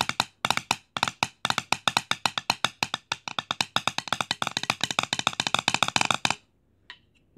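Zildjian maple 5B wood-tip drumsticks tapping in a fast, even run of sharp wooden clicks, about seven a second, stopping about six seconds in.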